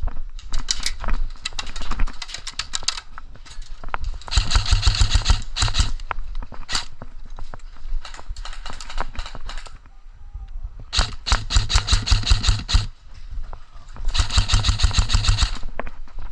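Airsoft rifle firing in rapid full-auto bursts, four strings of quick clicking shots a few seconds apart.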